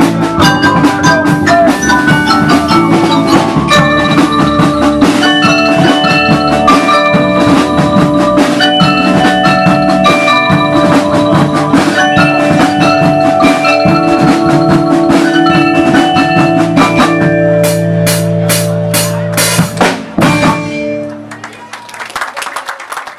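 Melody-and-percussion band playing on marimbas, xylophones and drums, with quick mallet runs over a steady drum beat. The piece ends about twenty seconds in with a run of loud drum strokes, and the sound dies away.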